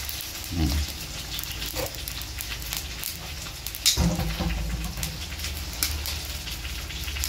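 Lump charcoal burning in a clay bucket stove, crackling and popping as it throws sparks.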